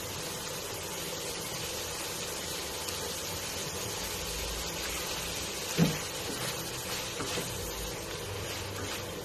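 Buttered shrimp sizzling in an uncovered frying pan as the sauce cooks down, a steady hiss. A little past the middle a wooden spatula knocks once against the pan, followed by a few light scrapes as it stirs.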